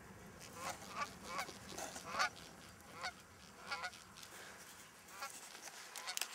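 A small flock of Canada geese honking overhead, a quick run of short calls for about four seconds, then fewer and fainter.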